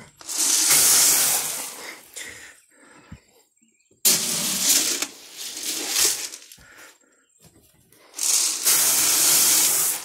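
Corn and feed pellets being poured from a bucket into a feed trough: three rushing, hissing pours of about two seconds each, with short pauses between.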